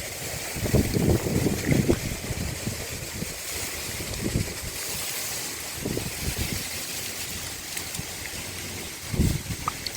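Muddy water sloshing and splashing in uneven bursts over a steady hiss, with wind buffeting the microphone.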